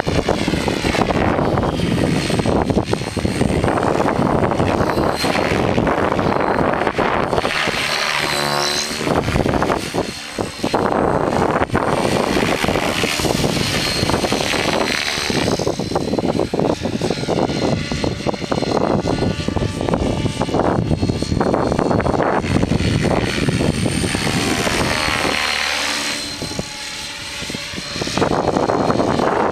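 Align T-Rex 600EFL Pro electric RC helicopter flying, its rotor and motor whine bending up and down in pitch a couple of times as it passes and manoeuvres. Gusty wind buffets the microphone underneath.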